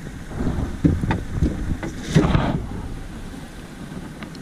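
Wind buffeting the microphone with a steady low rumble, while a caught rockfish is unhooked and drops onto the skiff's floorboards: several sharp knocks about a second in, then a short clatter a little after two seconds.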